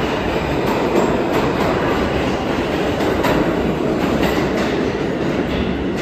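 R160 subway train pulling out of an underground station, its wheels clattering over rail joints under a steady rolling rumble.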